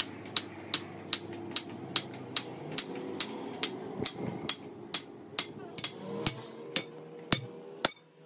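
Hammer striking the top end of a steel truck axle shaft, a steady run of about twenty ringing metal-on-metal blows at roughly two and a half a second, slowing slightly near the end.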